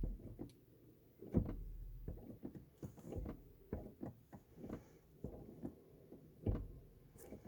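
Irregular light knocks and clicks, a few each second, with two duller thumps, one about a second and a half in and one near the end.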